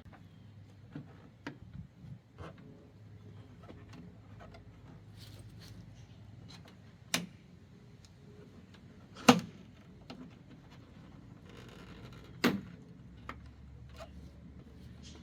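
Plastic retaining clips on a Chevrolet Silverado's factory grille snapping loose as the grille is pried off, with light clicks of plastic shifting. The three loudest snaps come about halfway through, a couple of seconds later, and near the end.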